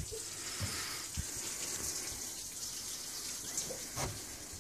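Water running steadily in the background as an even hiss, with a few faint knocks.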